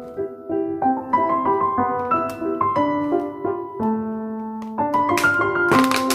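Background music led by a piano melody, with light percussive taps joining near the end.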